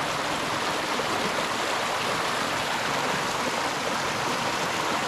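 Mountain stream running, a steady, unbroken rush of flowing water.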